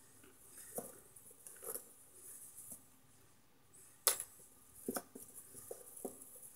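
A hand digging through microwaved cornstarch chunks in a plastic tub, the dry, chalky chunks clicking against each other and the container and crumbling. There are sharper snaps about four and five seconds in.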